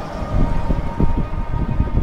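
Rumble of a moving vehicle ride over the road, with uneven low thumps and a thin steady whine.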